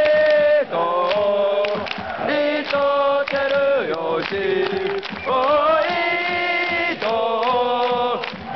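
Football supporters' crowd singing a player chant in unison: long held notes that glide up or down between phrases, with a few sharp hits under the singing.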